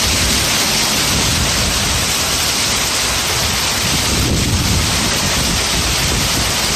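Torrential storm rain pouring down in a loud, steady rush, with a low rumble underneath.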